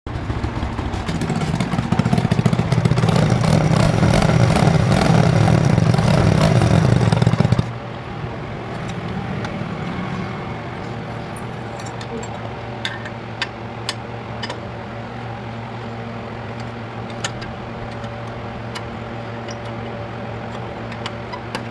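Motorcycle engine running loudly through its exhaust for about eight seconds, then abruptly giving way to a quieter steady idle with scattered light clicks.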